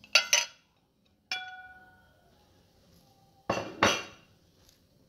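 A metal spoon knocking and clinking against dishes while canned tuna is scooped into a bowl. There are two quick clinks at the start, one about a second in that rings on briefly, and two louder knocks near the end.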